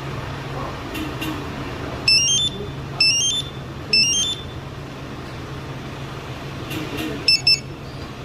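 Aftermarket Magic Car alarm siren on a Hyundai Porter truck. It sounds three short electronic chirps that each rise in steps, about a second apart, then two quick beeps near the end, with light clicks before them.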